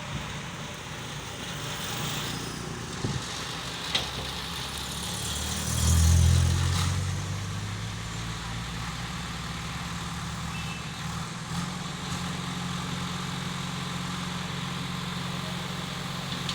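A heavy engine idling steadily, with a louder vehicle swell about six seconds in and a couple of short sharp knocks a few seconds before it.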